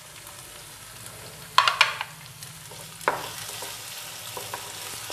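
Wooden spatula stirring and scraping a spiced chicken filling around a nonstick frying pan, over a steady low sizzle, with sharper scrapes about a second and a half in and again near three seconds. The filling is being fried down until the masala is cooked through.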